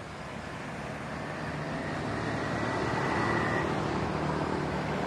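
Distant engine noise that swells over about three seconds and then holds steady, with a faint high whine in the middle.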